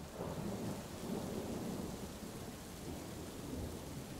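Steady rain falling, with a low rumble of thunder rolling through in the first couple of seconds.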